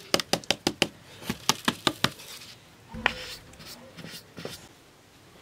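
Flour sieve being knocked against the rim of a metal basin to shake the flour through: two quick runs of sharp taps, a duller thump about three seconds in, then a few lighter taps.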